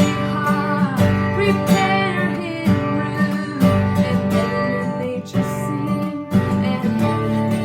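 Worship music with strummed acoustic guitar and a melody line, at a steady, full level.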